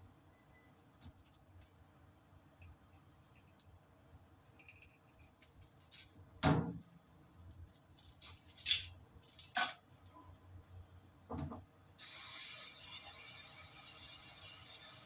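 Metal hand tools and parts clinking and clanking during truck clutch work, with a few louder metallic clanks. About twelve seconds in, a steady high hiss starts suddenly.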